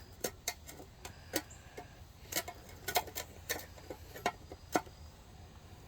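Irregular light clicks and taps, about ten in a few seconds, from electrical tape being worked around a wooden tool handle.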